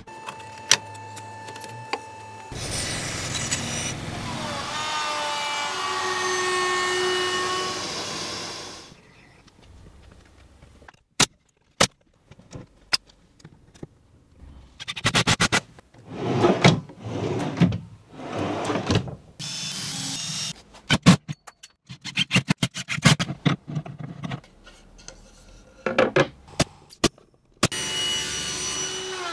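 Woodworking work sounds: a power tool runs for several seconds and winds down, with its pitch falling. It is followed by a string of clicks, knocks and scraping strokes on wood, and the tool runs and winds down again near the end.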